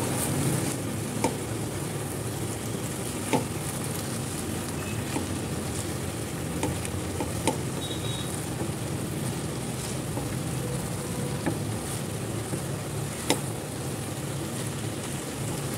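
Potato and cauliflower sabzi sizzling in a nonstick kadai as it is stirred with a wooden spatula, a steady sizzle broken by a few sharp taps of the spatula against the pan.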